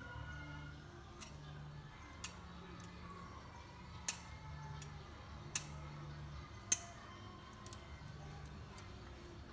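Scattered sharp clicks and taps of small hard parts or tools being handled, with four louder ones spread through the middle, over a faint low hum.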